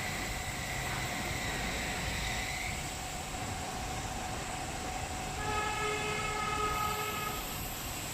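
Tunnel car washing machine running: a steady hiss of spraying water and machinery with a high whine that fades out about three seconds in. About five and a half seconds in, a held horn-like chord of several tones sounds for about two seconds.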